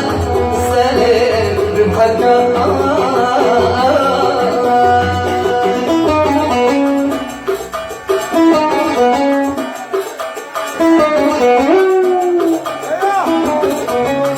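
Oud playing a Yemeni Sanaani song melody in runs of short plucked notes.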